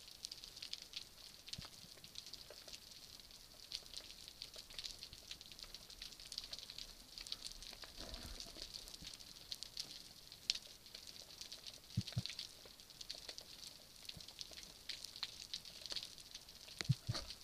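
Underwater ambience of a Mediterranean rocky reef: a continuous dense crackle of tiny snaps, typical of snapping shrimp. Two brief low grunts stand out, one past the middle and one near the end.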